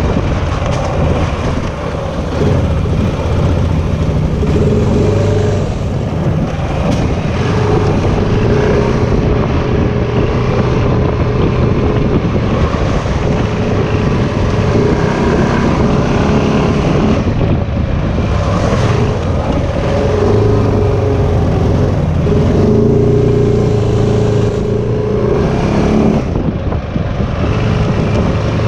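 Off-road vehicle engine running under varying throttle, its pitch rising and falling, over a steady rushing noise.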